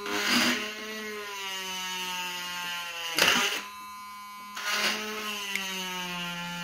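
A homemade drill's RS-775 DC motor whines as its bit bores into a PVC pipe, the pitch sagging under the load of the cut. There are brief louder scrapes near the start, about three seconds in and near five seconds, as the bit bites into the plastic.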